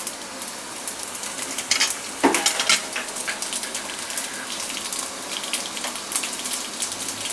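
Mustard, cumin and fenugreek seeds crackling and popping in a spoonful of hot groundnut oil in a metal kadai: a sambar tempering being fried. A cluster of louder pops comes about two seconds in.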